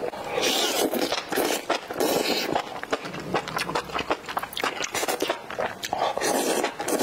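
A person chewing and slurping noodles in spicy broth close to the microphone, with wet mouth clicks and smacks throughout. Near the end comes a longer slurp as a bundle of noodles is drawn into the mouth.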